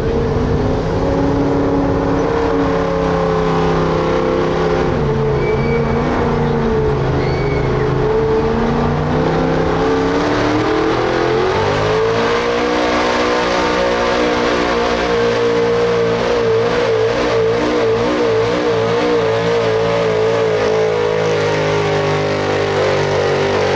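Pulling truck's engine running hard under load as it drags the weight sled. The revs climb about halfway through and then hold high, wavering in pitch near the end.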